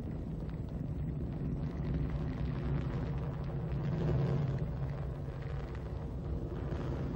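Ariane 5 rocket climbing under full thrust: a steady low rumble from its main engine and solid boosters.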